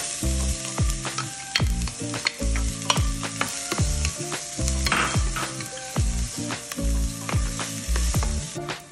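Chopped onions sizzling as they fry in hot oil in a stainless steel pan, stirred with a wooden spoon, with light clicks of the spoon against the pan. A low, rhythmic music backing plays underneath.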